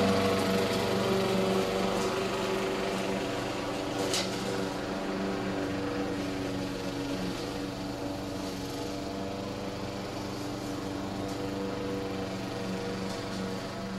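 Gas push lawn mower engine running steadily, growing fainter over the first few seconds as it moves away, then holding at a lower level. A single short sharp click about four seconds in.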